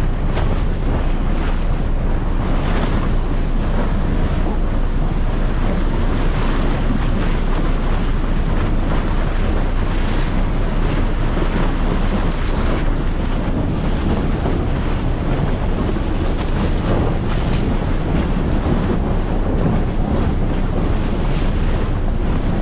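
Wind buffeting the microphone on the deck of the icebreaker Aurora, over the steady low rumble of the ship under way and rushing water along its hull.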